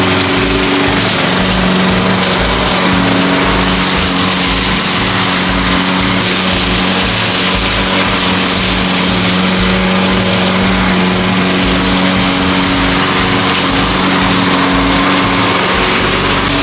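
Small petrol engine running steadily at a constant speed, with a steady buzzing pitch.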